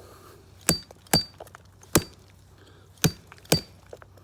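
Metal hammer head splitter on an axe's poll striking dried-out bone to break it up. Five sharp knocks at uneven spacing, several with a brief metallic ring.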